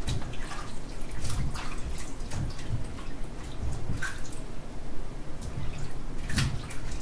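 Ears of fresh-picked sweet corn being washed by hand in a kitchen sink: water splashing and dripping, with scattered light knocks.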